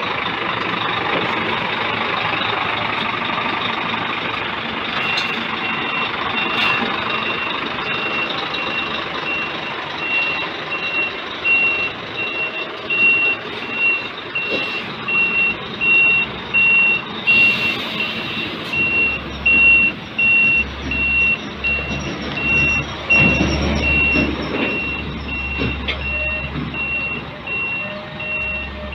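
Heavy diesel truck running, with a reversing alarm sounding steady, evenly spaced high beeps from about five seconds in. A deeper rumble joins in during the second half.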